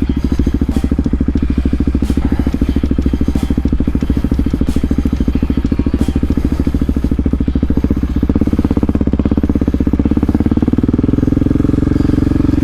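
Supermoto motorcycle engine running at low, steady revs while being ridden, its exhaust pulses coming fast and even; near the end the revs climb a little.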